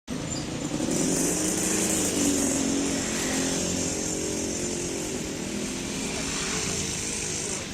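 A motor vehicle engine running, with a steady high hiss over it that cuts off suddenly near the end.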